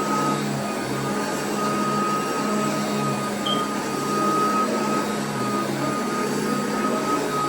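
Royal vacuum cleaner running steadily on carpet: a continuous motor hum with a steady high whine over the rush of air.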